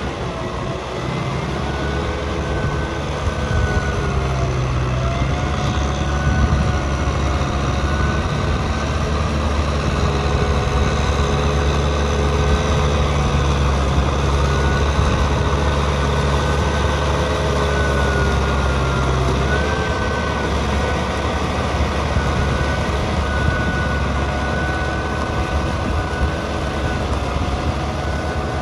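Kubota tractor's diesel engine running steadily under load as it pulls a rotary tiller through wet paddy mud, with a wavering whine above the engine note.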